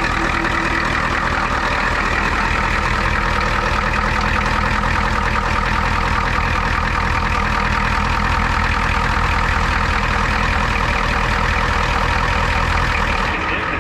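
Ford 7.3 IDI V8 diesel engine idling steadily, with some air still left in its fuel system after being primed through a new electric fuel pump, as the owner reckons.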